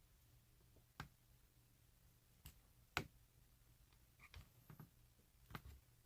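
Scattered small clicks and taps from handling a Euro cylinder lock and lockpicking tools, about half a dozen sharp ticks over a quiet background, the loudest about three seconds in.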